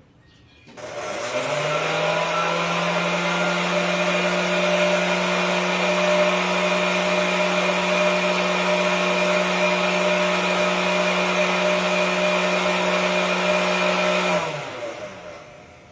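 Oster hair dryer switched on about a second in: the motor spins up to a steady hum over a rush of blown air. It is switched off near the end and winds down with a falling pitch.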